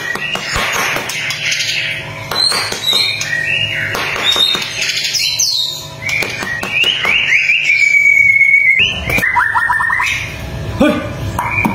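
White-rumped shama (murai batu) singing a fast, varied song of rising and falling whistles and rapid trilled notes, with one longer held whistle about two-thirds of the way through.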